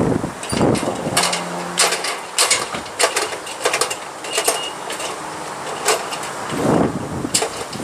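Irregular clicks, knocks and scrapes of hand tools working wooden window trim, about a dozen sharp strikes spread unevenly.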